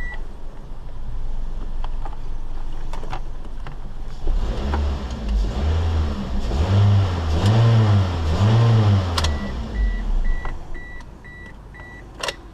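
Toyota Corolla engine idling roughly, its speed rising and falling several times in the middle, which the owner puts down to the ECU needing a reset after the battery change. Near the end a car's electronic chime beeps about seven times in an even row.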